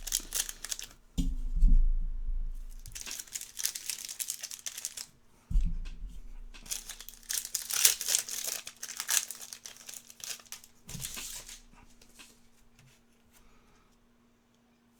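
Trading-card pack wrappers being torn open and crinkled by hand, in a series of tearing and rustling bursts with a few low handling thuds, dying away near the end.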